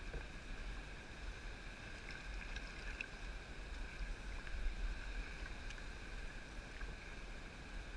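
Choppy sea water lapping and sloshing against a kayak's hull, with a steady low wind rumble on the microphone and a few faint clicks.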